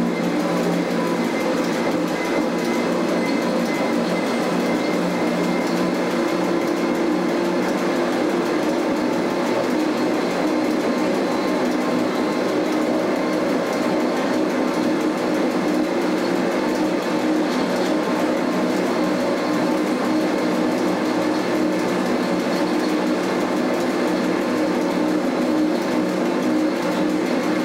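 Electric cogwheel (rack) train running at a steady speed, heard from inside the driver's cab: a continuous drone of motors and running gear with steady low hum tones and no breaks.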